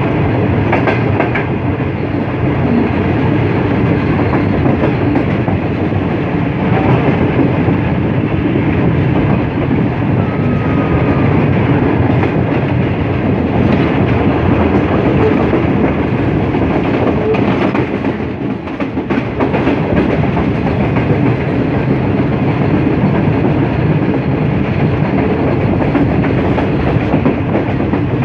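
Passenger train of the 16dn Karachi Express running at speed, heard from an open carriage doorway: a loud, steady rumble of wheels on rails with clickety-clack over the rail joints.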